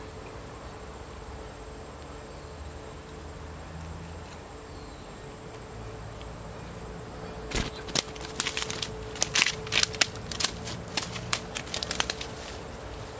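A steady insect drone, then from about halfway in a few seconds of irregular sharp crackling and rustling as the freshly caught tilapia is handled.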